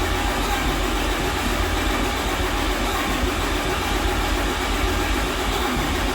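6.7 Cummins turbo-diesel being cranked over by its starter, a steady loud cranking that does not catch into running on this attempt.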